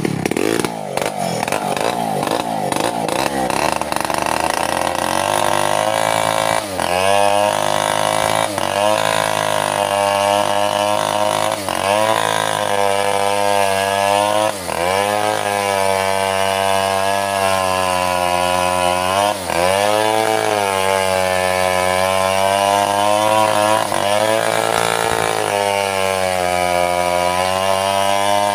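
Two-stroke Stihl chainsaw running near full throttle as it saws lengthwise through a mahogany log. The engine pitch wavers in the first few seconds, then dips briefly again and again as the chain bogs under load in the cut.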